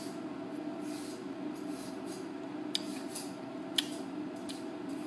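Steady low room hum, with two short sharp clicks about a second apart near the middle.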